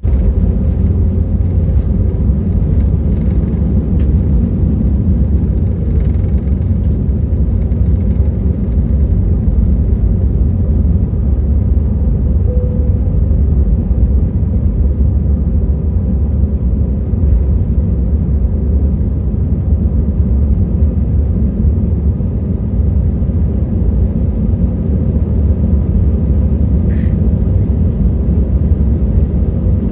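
Steady low rumble of an airliner, unchanging throughout.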